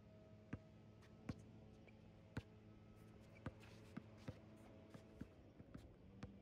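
Faint, irregular knocks of a basketball bouncing on an outdoor court and players' shoes on the surface, the sharpest two about a second and two and a half seconds in, over a faint steady hum.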